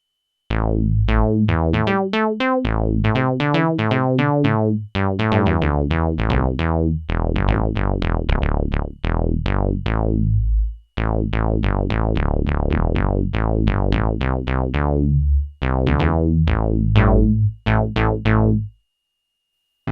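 Sequential Prophet-6 analogue polyphonic synthesizer playing a factory preset: a fast sequenced run of short plucked notes with sharp attacks and quick decays over low bass notes. It starts about half a second in, breaks off briefly three times, and stops about a second before the end.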